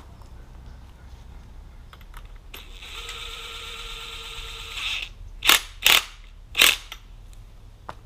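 Cordless power wrench on a low torque setting tightening suspension nuts. It runs with a steady whir for about two and a half seconds, then gives three short, loud bursts as the nuts are driven tight.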